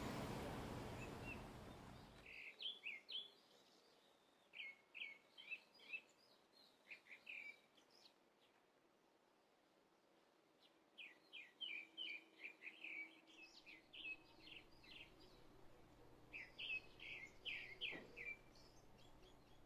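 A bird singing in repeated phrases of quick chirps, with quiet pauses between the phrases. Over the first two seconds a faint hiss of outdoor noise fades out.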